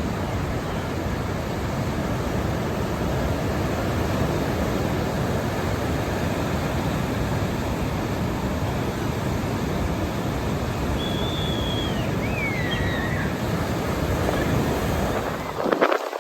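Ocean surf washing onto a beach: a steady rush of breaking waves with a deep rumble underneath.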